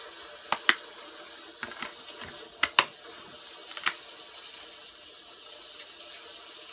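Sharp plastic clicks and taps from handling a DVD case and its discs, about seven in the first four seconds, over a steady hiss of rain.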